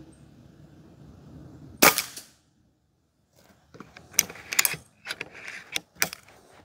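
Karma SLS .22 PCP air rifle firing one shot just under two seconds in, a sharp crack that fades quickly. About three and a half seconds in comes a run of quick metallic clicks and clacks as the side lever is worked to cock the rifle and chamber the next pellet.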